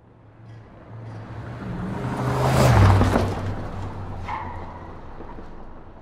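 A car speeding past: its engine and tyre noise swells up out of silence, peaks about three seconds in with a drop in pitch as it goes by, then fades away.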